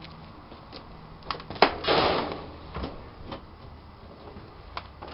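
Handling noise: a sharp knock about one and a half seconds in, then a brief scraping rustle, with a few lighter clicks.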